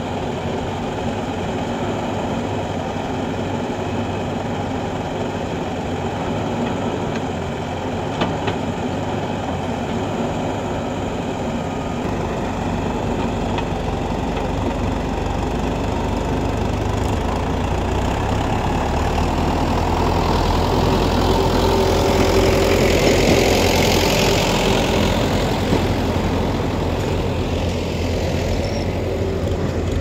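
Diesel engines of a JCB 3DX backhoe loader and a tractor running together, a steady rumble that grows heavier partway through and is loudest a little past two-thirds of the way, with a rushing hiss on top for a few seconds there.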